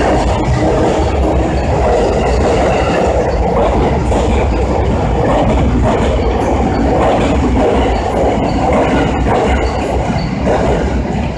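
Tokaido Line E233-series and E231-series electric commuter train pulling out and running past. Its wheels rumble on the rails in a loud, steady noise that eases slightly near the end.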